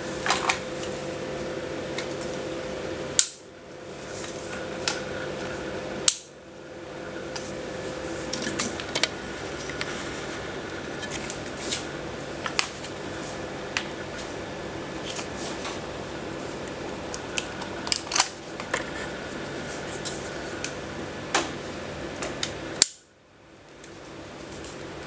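Scattered light clicks and knocks from a full-metal airsoft M4 rifle being handled, with three sharper knocks, over a steady background hum.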